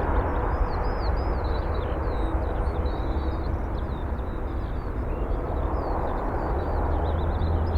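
Jet airliner engines running, a steady rumbling noise that fades slowly, with small birds chirping over it.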